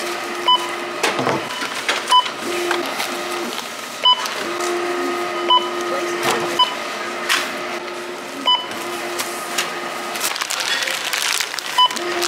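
Checkout barcode scanner beeping as items are scanned: about seven short, identical high beeps at uneven gaps, over a low steady hum and shop background noise.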